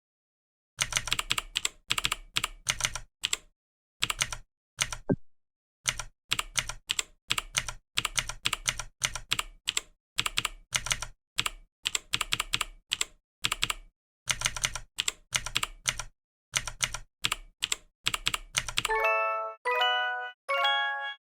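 Typing on a computer keyboard: quick runs of key clicks in bursts with short pauses. It ends with three short chime notes, each a little higher than the last.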